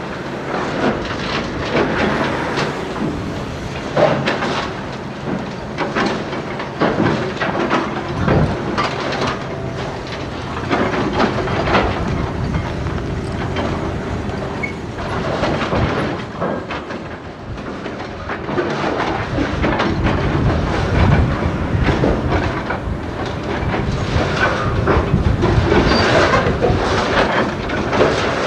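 Demolition-site machinery: heavy diesel trucks running while a loaded truck carrying steel bridge-girder sections drives past, with irregular metal clanks and knocks throughout.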